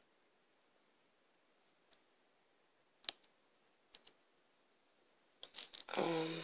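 A near-silent pause broken by a few faint, scattered clicks, then a boy's voice starting near the end with a drawn-out vocal sound.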